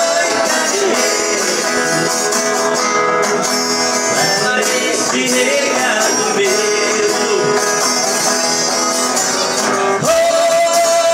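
Viola caipira and acoustic guitar played together, amplified through microphones, while a man sings.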